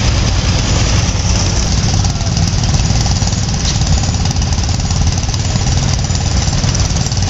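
Old farm tractor engines running as the tractors drive slowly past, a Massey-Harris 44 close by at first: a loud, steady, fast chugging.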